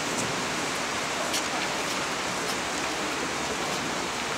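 A steady, even hiss with a few faint ticks roughly a second apart.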